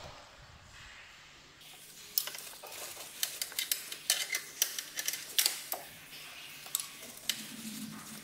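Irregular sharp metallic clicks and clinks of a wrench working the small 8 mm water pump mounting bolts loose, starting about two seconds in.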